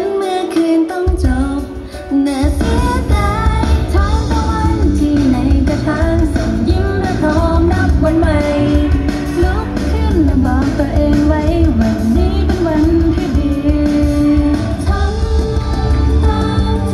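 A band playing live with a lead singer; the bass and drums come in fully about two seconds in, under the sung melody.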